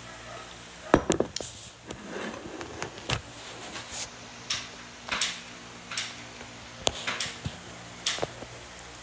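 A toddler eating with a plastic spoon from a bowl: short knocks and scrapes of the spoon against the bowl, about a dozen spread through, the loudest knock about a second in.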